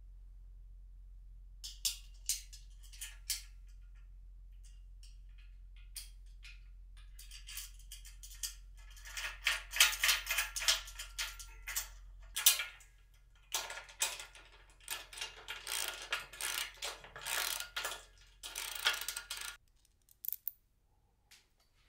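Metal hardware being fitted by hand into a steel bracket: sharp clicks at first, then long runs of rapid clicking and scraping as bolts, nuts and washers are handled and threaded. It falls nearly quiet near the end.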